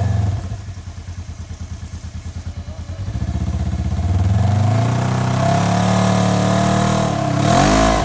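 Polaris side-by-side UTV engine running with a rapid pulsing beat, then revving up under load as a stuck RZR is dragged out of mud. It climbs to its highest revs near the end and drops back.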